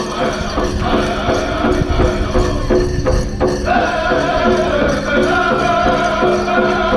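Powwow drum group singing a chicken dance song over a steady, even beat on the big drum, with the high voices growing stronger about four seconds in.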